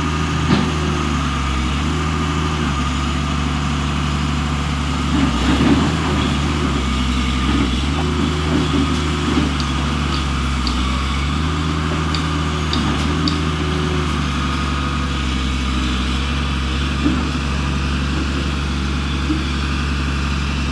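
Vehicle engine idling steadily, its low hum shifting slightly in pitch now and then, with a few short clicks and knocks over it.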